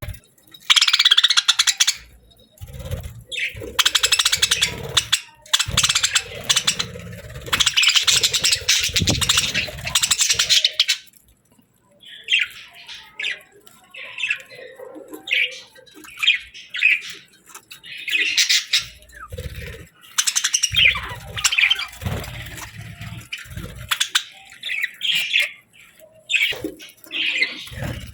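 Budgerigars chirping and warbling in fast, buzzy chatter, in long runs and shorter bursts, with low thumps now and then underneath.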